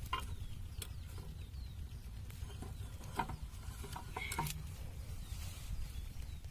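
Small single-cylinder diesel irrigation pump-set engine running steadily, a low rumble of rapid firing pulses, with a few sharp clicks and taps over it.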